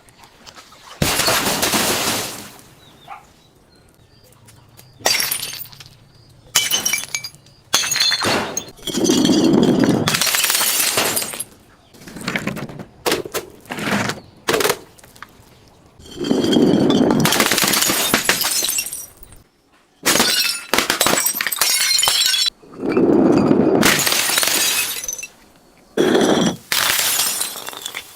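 Glass bottles being crushed, shattering and crunching in about a dozen separate bursts, each lasting from under a second to a few seconds, with short quiet gaps between.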